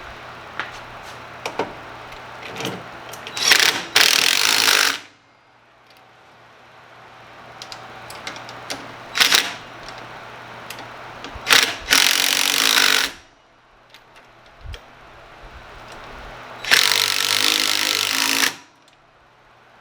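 A handheld power tool run in three bursts of about a second and a half each, with short clicks and clinks of handled metal parts between them.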